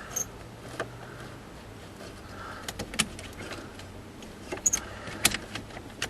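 Scattered small metallic clicks and light rattles from hand work on a truck's steering-column starter switch and its linkage, with a few sharper clicks about three seconds in and again near the end.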